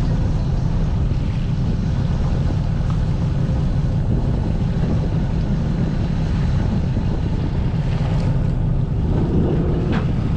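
Fishing boat's engine running steadily under way, a heavy low rumble, with wind buffeting the microphone and water noise from the hull.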